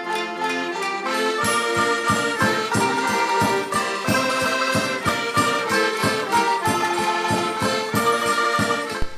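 Background music: an upbeat tune of many pitched notes over a steady beat that sets in about a second in and stops abruptly near the end.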